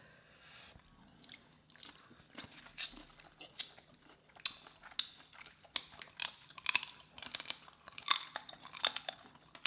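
Close-miked eating of a jumbo boiled shrimp: wet chewing with short crackly clicks, sparse at first and coming thicker from about halfway through.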